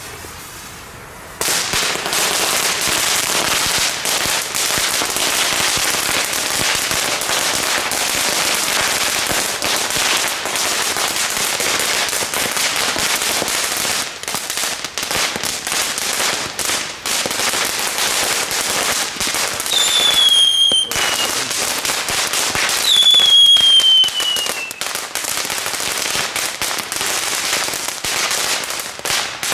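Homemade string of small category 1 firecrackers going off in rapid, continuous crackling pops. It catches about a second and a half in, and falling whistles cut through the popping three times in the second half.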